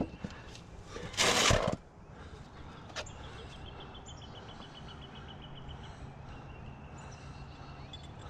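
A short burst of rushing noise about a second in and a sharp click a little later. Then a bird gives a faint, rapid run of high, evenly spaced chirps for about three seconds.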